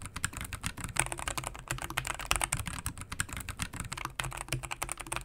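Fast, steady typing on an AZIO Cascade 98 Slim low-profile mechanical keyboard with its stock Gateron low-profile switches: a dense run of keystroke clacks. Partway through, the sound switches from the board in stock form to the board after a tape mod on the PCB with polyfill in the bottom case.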